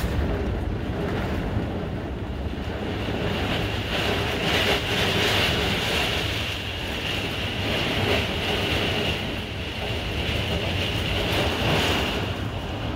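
Severe thunderstorm heard from inside a fifth-wheel camper: a steady roar of wind and wind-driven heavy rain against the camper and its windows, rising and falling in gusts every few seconds.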